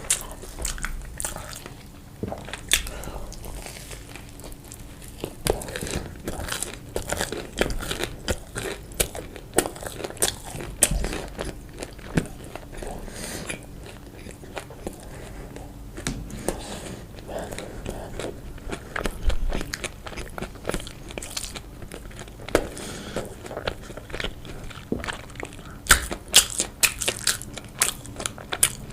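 Close-miked eating: a steady run of bites and chewing with many short, sharp crunches, thickest near the end.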